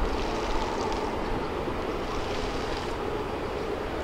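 Jet engines of a twin-engine wide-body airliner running on the runway at the start of its takeoff: a steady, even rushing noise.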